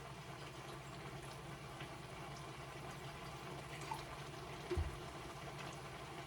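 Cucumber slices and shrimp sizzling gently in a frying pan, a steady low crackle. A soft knock comes about three-quarters of the way through.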